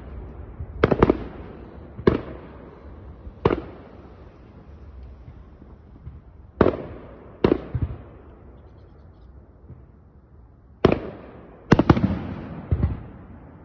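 Aerial firework shells bursting in a display: sharp bangs, several in quick pairs, each fading out in a long echoing tail, with a lull of about three seconds between groups.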